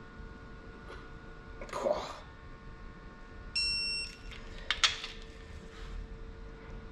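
Snap-on digital torque wrench giving a single beep of just over half a second, about three and a half seconds in, as a main-cap nut reaches its set torque. A short clunk comes before it and a sharp knock just after.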